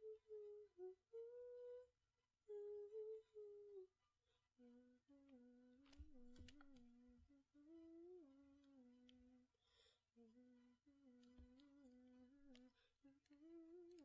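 A woman softly humming a tune in short phrases, her pitch stepping between notes, with a few faint keyboard key clicks from typing about halfway through.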